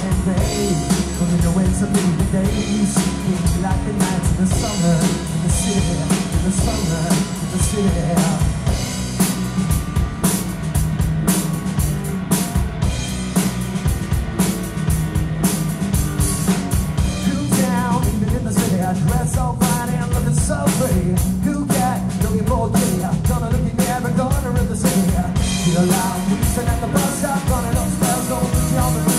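Live rock band playing loudly: electric guitar, electric bass and drum kit with a steady driving beat.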